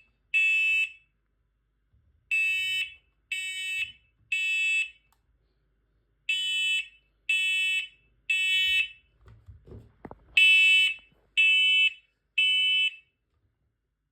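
Smoke alarm sounding in alarm with the temporal-three evacuation pattern: three high-pitched half-second beeps about a second apart, then a pause, repeating. A faint rustle and click come just before the third set.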